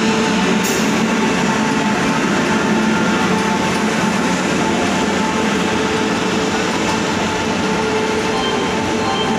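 Express train passing close along a station platform at speed: a steady, loud rumble of coaches rolling over the rails, with a faint steady hum underneath.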